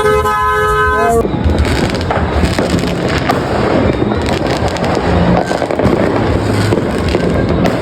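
A vehicle horn sounds one steady blast for about a second, then it gives way to dense, continuous crackling of fireworks and firecrackers going off.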